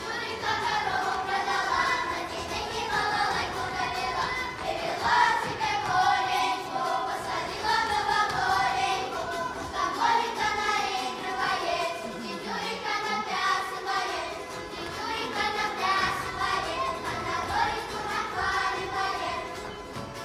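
Children's folk ensemble singing a Russian folk song together in chorus.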